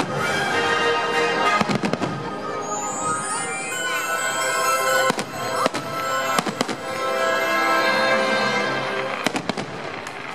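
Fireworks show music playing, with the sharp bangs of aerial firework shells bursting: a few about a second and a half in, a cluster in the middle and a pair near the end.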